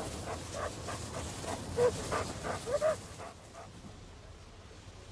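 German Shepherd search dogs panting quickly and hard, with two short whines near the middle. The panting stops about three seconds in, leaving only a faint hiss.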